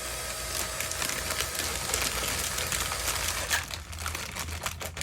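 Crinkling and rustling as pipe brackets are handled, turning into a quick run of sharp clicks in the last second and a half.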